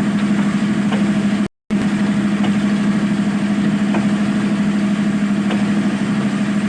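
Zoomlion ZE215E excavator's diesel engine running steadily with an even drone. The sound cuts out for a split second about a second and a half in, then resumes.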